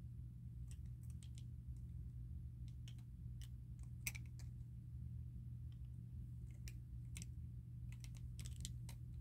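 Chanel lip gloss tubes clicking and tapping against one another as they are handled, in many small irregular clicks with the sharpest about four seconds in, over a steady low hum.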